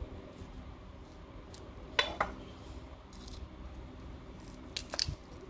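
Shallots being peeled with a kitchen knife: small scattered clicks and crackles of knife and papery skin, with two sharper clicks about two seconds in and a quick cluster near the end.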